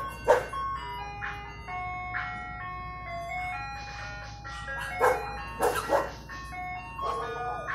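Ice cream truck jingle playing, a melody of held single notes stepping up and down in pitch, while dogs bark once near the start and several times about five seconds in.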